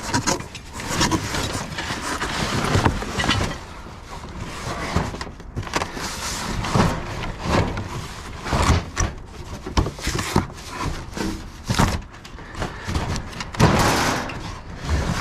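Scrap metal and debris scraping and clanking inside a dumpster as heavy, stuck pieces are wrestled loose. Irregular knocks and scrapes throughout, the loudest a little before the end.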